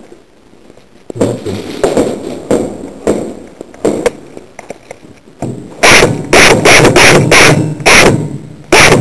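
An airsoft gun fires a quick string of loud, sharp shots, about seven over the last three seconds. Before that come irregular rustling and knocks.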